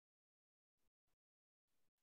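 Near silence, broken by a few very faint, brief crackles of noise about a second in and near the end.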